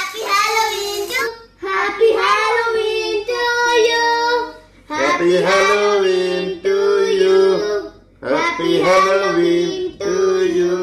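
A child's singing voice carrying a song melody in phrases broken by short pauses. From about five seconds in, a lower held note sounds beneath the melody.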